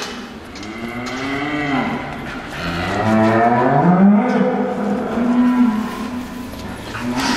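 Limousin cattle mooing: two long moos, the first rising and falling, the second rising and then held for a few seconds.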